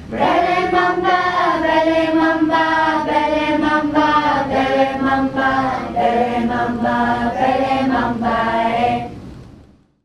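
A group of children and adults singing together, unaccompanied, a song in the Yuggera language; the singing fades out near the end.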